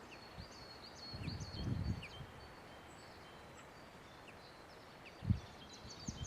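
Woodland birdsong: several small birds singing and calling with quick high chirps and short trills throughout. Low rumbling bumps come about a second in and again briefly near the end.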